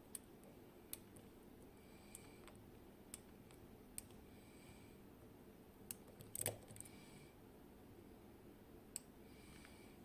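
Faint, irregular small metallic clicks and light scraping of a lock pick working the pins inside a Kaba Gemini Plus high-security lock under tension, with a louder quick cluster of clicks about six and a half seconds in.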